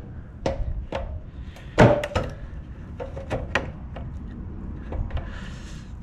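Old scissors snipping and crunching through a push bumper's impact-absorbing material: a string of sharp cuts at uneven intervals, the loudest about two seconds in, with a brief rustle near the end.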